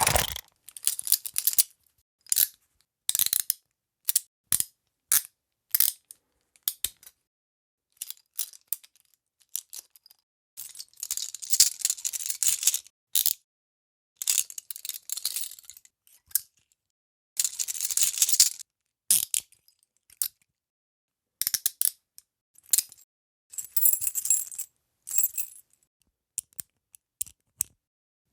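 Metal handcuffs being worked: single sharp clicks and short runs of rapid ratcheting clicks as the cuffs are tightened and unlocked, with silent gaps between.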